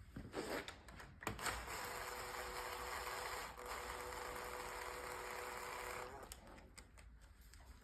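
Small electric power tool running steadily for about five seconds, spinning a gearbox casing bolt down, after a few sharp clicks of parts and tools being handled.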